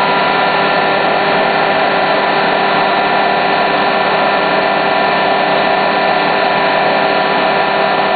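Induction heating machine running while it heats a metal tube end red-hot: a steady drone with several constant tones layered over it.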